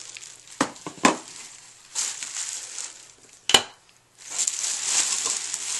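Plastic bubble wrap being handled and crinkled on a table, with a few sharp knocks; the loudest, sharpest one comes about three and a half seconds in.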